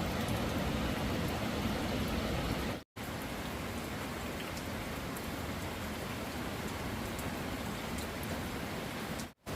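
Steady rain, a dense even hiss broken by two brief silent gaps, about three seconds in and near the end.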